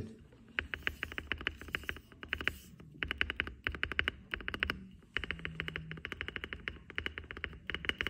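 Spacebar of an Akko MOD 005 custom mechanical keyboard, with stock clip-in stabilizers lubed with Krytox 205g0 and nothing else, pressed rapidly over and over in several quick runs with short pauses between them.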